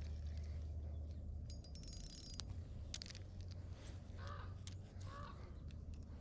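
Faint outdoor sound: a steady low rumble with scattered clicks and a brief ticking rattle, then a bird giving short calls twice in the second half.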